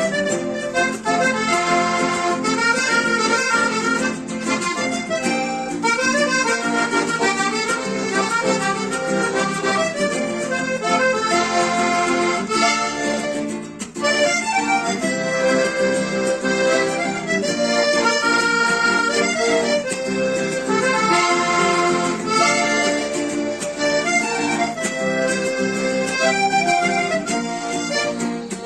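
Accordion playing a Panamanian cumbia, fast runs of notes over a steady rhythm, with a brief break about halfway through.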